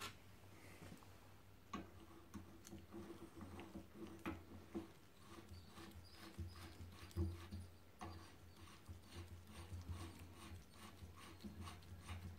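Faint light clicking of a 5 mm Allen key tool turning the pad retaining pins into a motorcycle rear brake caliper, the clicks coming quicker and more regular in the second half, over a low steady hum.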